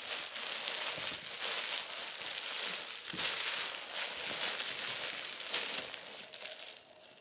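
Fabric cat tunnel crinkling and rustling continuously as a cat wriggles through it, dying down near the end.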